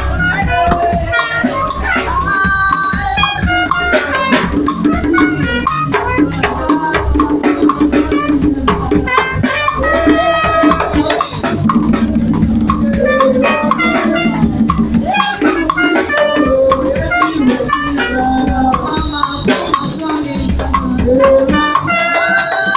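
Live band music: an acoustic drum kit playing a steady, busy beat, with a shaker and a trumpet over it.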